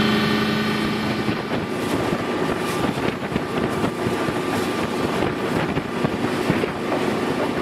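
Boat under way: a steady engine drone from inside the wheelhouse, then, about a second in, gusty wind buffeting the microphone on the open deck over the continuing engine and water noise.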